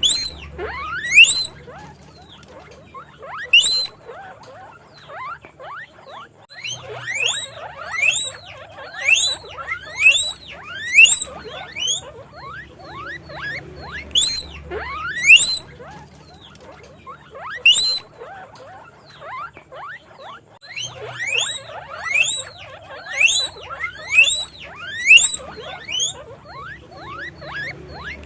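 Guinea pigs squeaking (wheeking): many short, loud calls that each sweep sharply upward in pitch, coming in runs with brief pauses between them.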